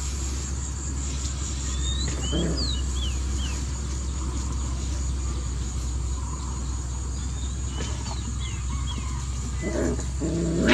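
Puppies play-fighting, with short low growls about two seconds in and again near the end, over a steady low rumble and high bird chirps.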